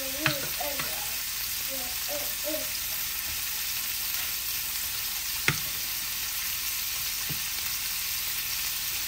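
Meatballs searing in a frying pan in fat rendered from the meat itself, a steady sizzle. A metal spatula clicks against the pan twice, just after the start and about halfway through.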